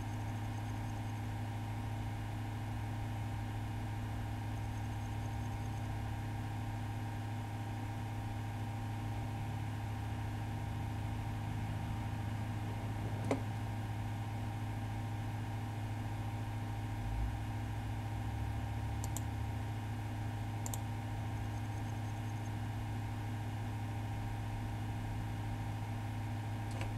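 Steady low electrical hum of a running computer, with a few single mouse clicks, the first about halfway through.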